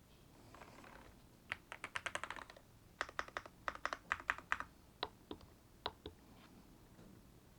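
Typing on a Monsgeek M1 V5 mechanical keyboard: two quick runs of keystrokes starting about a second and a half in, then a few single key presses, stopping about six seconds in.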